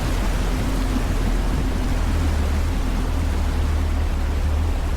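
A safari vehicle's engine running steadily under a constant rushing noise as it drives through a river crossing.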